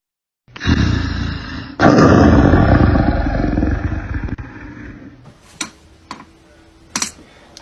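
A loud, rough animal growl or roar that starts just under a second in, grows louder about two seconds in and fades about five seconds in, followed by a few sharp clicks.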